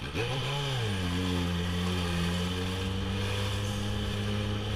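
Yamaha XJ6 motorcycle's inline-four engine under way: its pitch rises briefly and drops back within the first second, then holds steady.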